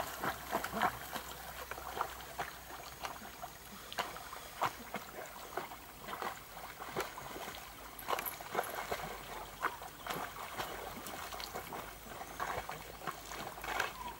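American Pit Bull Terrier swimming: water splashing and trickling in many short, irregular spurts as it paddles.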